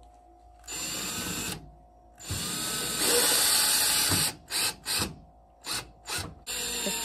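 Power drill driving screws into a bed frame, run in starts and stops: a run of about a second, a longer run of about two seconds, a few short trigger blips, then a steady run near the end.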